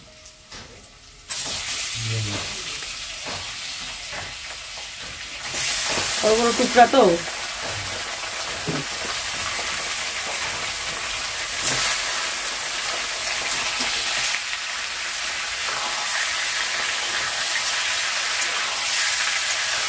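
Raw chicken pieces going into hot oil in a steel wok and sizzling: the frying starts suddenly about a second in, gets louder around five seconds in and keeps up a steady hiss as the meat is stirred with a spatula.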